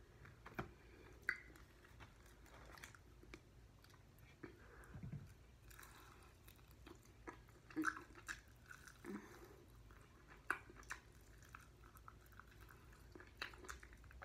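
A person chewing and biting into chicken wings close to the microphone, quiet, with irregular wet smacks and clicks.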